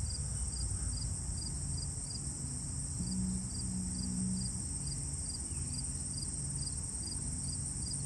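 Steady high-pitched chirring with a faint pulse repeating a few times a second, over a low rumble.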